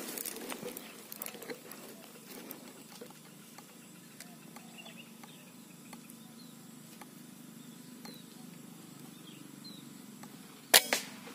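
A single sharp rifle shot near the end, taken at a perched spotted dove through a scope. Before it there is a quiet outdoor hush with faint clicks and a few faint chirps.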